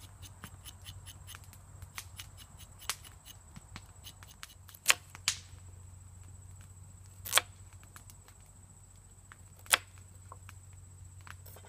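Knife slicing a carrot into rounds on a wooden cutting board: irregular sharp knocks of the blade meeting the board, three of them much louder, with lighter clicks between.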